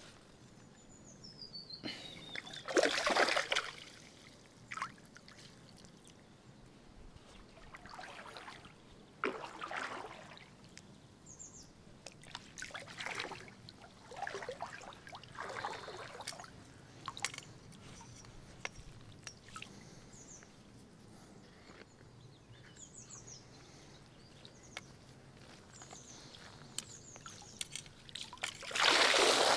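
Water splashing and trickling as a fishing keepnet is drawn up out of shallow river water, with a splash every few seconds and a louder rush of water draining through the mesh near the end.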